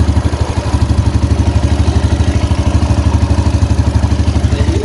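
Yamaha Jupiter Z1's single-cylinder four-stroke engine idling steadily, heard close to its right-side crankcase cover, with even firing pulses at about ten a second. Under it is a rubbing sound from the right side of the engine, like parts scraping, which the owner brought in as a rough noise; the mechanic has found the kick starter broken.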